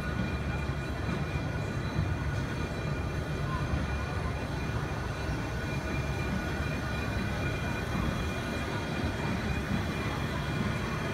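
Small steam switcher locomotive and its passenger car turning slowly on a turntable: a steady low rumble with a faint hiss and thin, steady whining tones above it.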